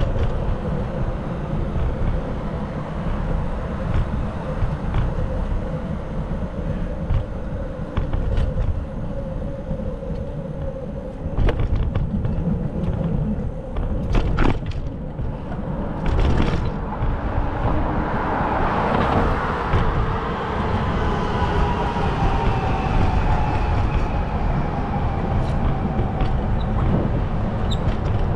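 Street traffic under a steady low rumble. About two-thirds of the way in, a vehicle passes, its pitch falling slowly as it goes by.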